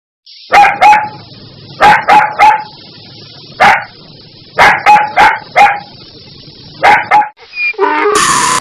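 A dog barking: about a dozen short, sharp barks in quick clusters of one to four, with a steady hiss between them. Near the end a different, higher pitched animal call begins.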